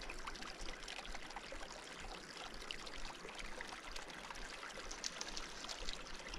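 Small creek trickling over rocks, a steady soft water sound.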